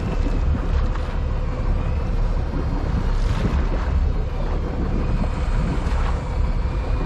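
Steady wind buffeting the microphone over the wash of open-sea water against a boat's hull, with a constant low rumble.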